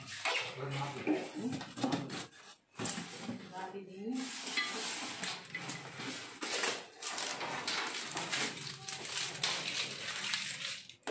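Dishes and utensils clattering and clinking as they are handled, an irregular run of clicks and knocks with a short lull about two to three seconds in.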